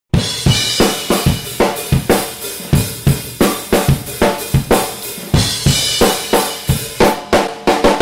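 Drum kit played in a steady beat of drum hits with ringing cymbals, about three strokes a second, quickening into a faster run of hits near the end.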